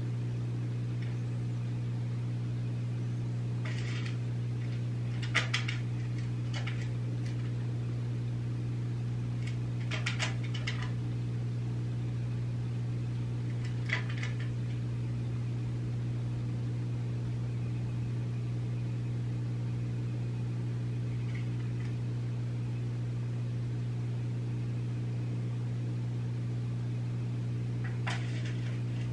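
A steady low hum with several brief, faint clicks and rustles scattered through it.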